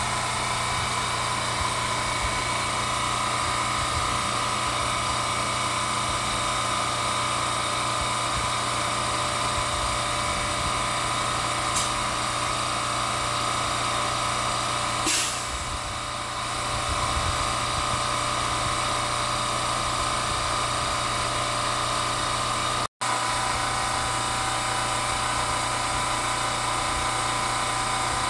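Subway train's electrical equipment running with a steady low hum and a high whine, as of a train standing still. A faint click a little before the middle, and the sound cuts out for an instant about two-thirds of the way through.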